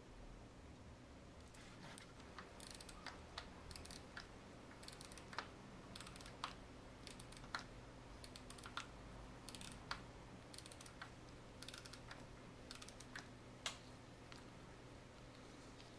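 Faint, irregular small clicks from tweezers and metal parts being handled on a vintage Rolex 1556 watch movement, some coming in quick little runs and some singly.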